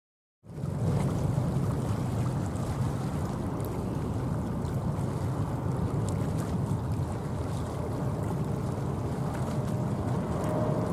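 Steady low rumble of a Boeing 777-300ER's GE90 jet engines on final approach, mixed with wind noise on the microphone, starting abruptly about half a second in. A faint steady whine joins near the end as the jet draws closer.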